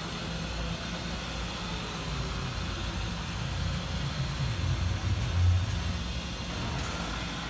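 Haas VF2SS vertical machining center with its Z-axis being jogged: a steady low machine hum over a high hiss, with one louder low thump about five and a half seconds in.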